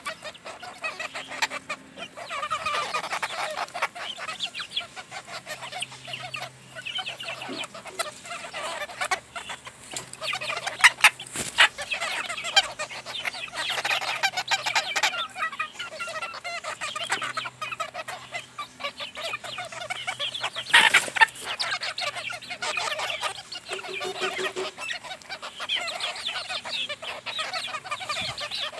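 A flock of hens clucking continuously while they peck and feed, with overlapping short calls. A few sharp knocks stand out, around the middle and about two-thirds of the way through.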